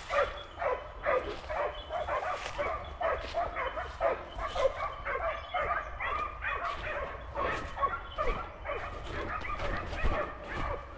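A pack of hunting dogs barking without pause, with many overlapping barks and yips each second: the dogs are on a wild boar.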